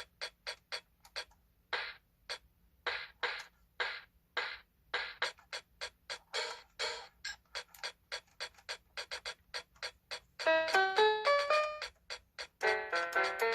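A 37-key electronic mini keyboard playing a rhythmic string of short, clipped sounds, then, about ten seconds in, quick runs of clear pitched notes stepping up and down, and a few more notes near the end.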